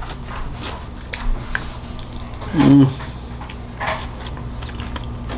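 Close-up mouth sounds of a person chewing a soft salmon taco: wet, squishy smacks and small clicks, with a brief hummed "mm" about two and a half seconds in.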